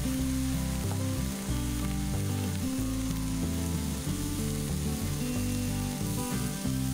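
Sliced mushrooms sizzling in oil in a frying pan. About halfway through, broccoli florets are dropped in, and near the end they are stirred in with a spatula.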